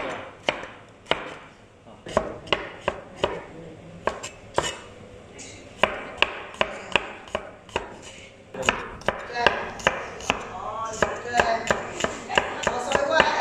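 Cleaver chopping tomato, garlic and shallots on a wooden chopping board: a run of sharp knocks of the blade on the board, about two a second at first, quicker and denser in the second half.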